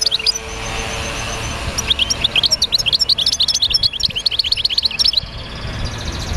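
Small birds chirping: many quick, high chirps a second in a rapid run, with a stretch of a steady high whistled tone before it and another after.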